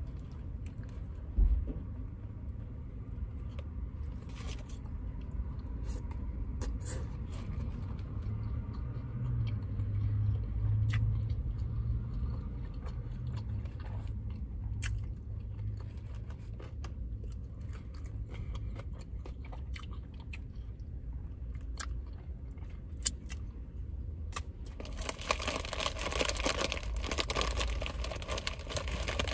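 Close-miked chewing and crunching of food, with scattered crisp crunches from kettle chips, over a steady low rumble. A single thump comes about a second and a half in, and near the end a louder, denser stretch of crackling sets in.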